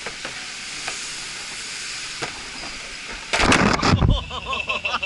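Steady hiss of falling water from a waterfall, with a few faint clicks. A little over three seconds in, loud rumbling bursts break in, followed by a wavering high-pitched sound.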